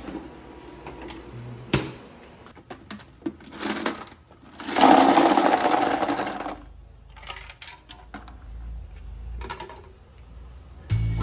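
Plastic ice basket knocking as it is lifted out of a portable ice maker, then a load of bullet-shaped ice cubes tipped from it into a plastic cooler, clattering and tumbling for about two seconds midway.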